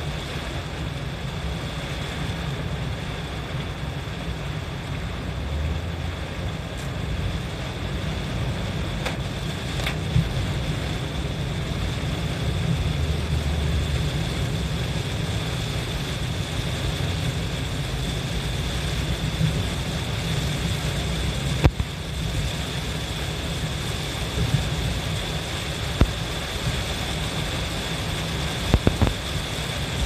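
Steady low rumble of a car driving on a wet expressway, heard inside the cabin, with the hiss of heavy rain and wet tyres over it. A few sharp clicks break through, one about two-thirds of the way in and a quick cluster near the end.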